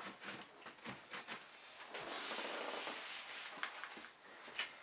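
Hands being wiped with a wet baby wipe: light rustles and clicks, then a steady rubbing sound for about a second and a half near the middle.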